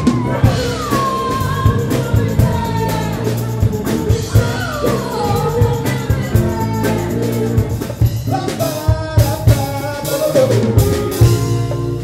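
A pop band playing: a woman's sung lead vocal with backing singers over bass guitar and a drum kit with a steady beat.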